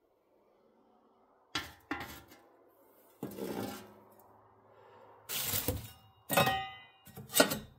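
Small metal ash shovel scraping and clanking against a metal ash bucket and the wood stove's firebox as ash is scooped out and tipped into the bucket. Several separate scrapes and clanks, one ringing clank about six and a half seconds in.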